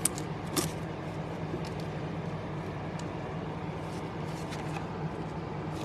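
A few short, light clicks of glossy trading cards being handled and set down, two of them in the first second, over a steady low background hum.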